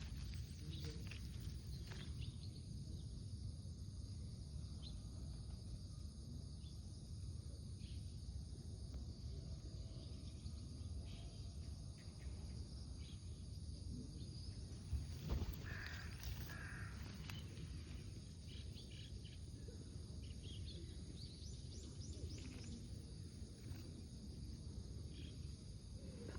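Faint steady outdoor background rumble, with a short animal call about fifteen seconds in.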